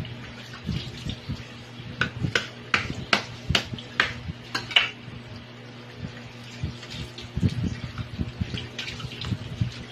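Live crab being cleaned with a knife in a kitchen sink: about eight sharp knife strokes against the shell in quick succession between two and five seconds in, then softer wet handling of the crab, with water in the sink.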